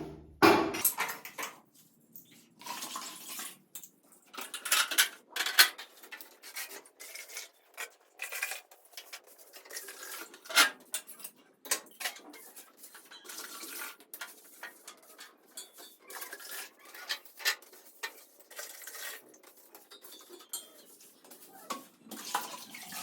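Metal kitchenware being handled: irregular clinking and clattering with sharp knocks, some louder than others.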